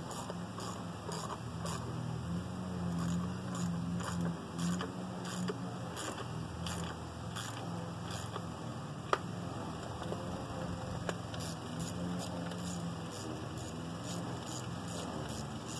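Light, irregular clicking from hand work with tools at the intake manifold of a 5.3 L LS V8, over a steady low hum, with one sharper click about nine seconds in.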